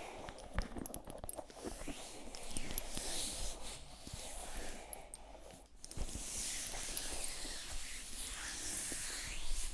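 Layered close-microphone ASMR sounds: scattered soft clicks over a breathy hiss.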